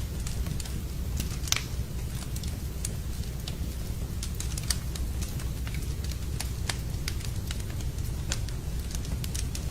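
Wood fire crackling in a fireplace: irregular sharp pops and snaps, one louder pop about a second and a half in, over a steady low rumble.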